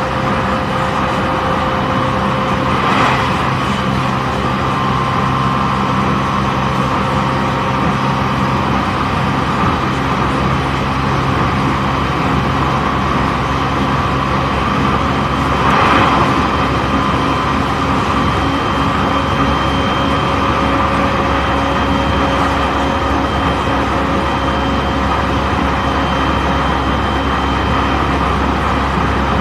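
E531 series electric train running at a steady speed, heard from inside a motor car: traction motor hum with several steady tones over wheel-on-rail rumble. Two brief louder rushes come about 3 and 16 seconds in.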